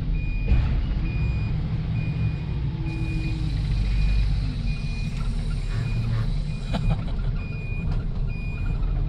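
Hyster reach stacker running, heard from inside its cab: a steady low diesel engine rumble under a warning alarm beeping at an even, steady pace. A hiss comes in about three seconds in, with a few sharp clicks.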